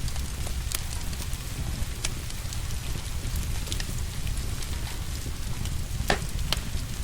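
Wood fire crackling in a fireplace: scattered sharp pops, a louder one about six seconds in, over a steady low rumble and the even hiss of rain.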